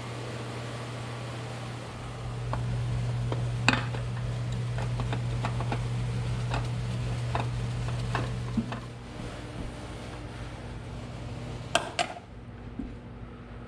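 Steady low hum with scattered light clinks and taps of small objects being handled, and two sharper clicks about twelve seconds in; the hum drops away about nine seconds in.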